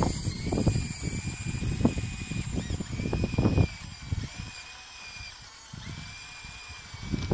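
Electric drive motors and gearboxes of a radio-controlled Bruder Cat D5 model bulldozer whining as it crawls on its tracks and pushes dirt, the whine stopping briefly a couple of times. Irregular low rumbling, likely wind on the microphone, is loudest in the first half and dies down about four seconds in.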